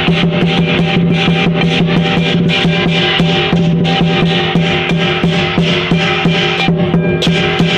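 Lion dance percussion playing: a drum beaten in a rapid, dense rhythm with clashing cymbals and gongs ringing on steady tones.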